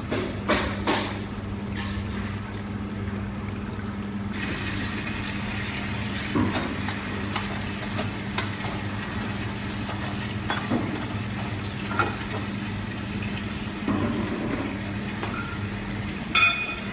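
Water-pressure bladder press hissing steadily as water runs through it, over a low steady hum, with the hiss growing brighter about four seconds in. A few clicks and knocks come as its valve and lid are handled, and a short squeak sounds near the end.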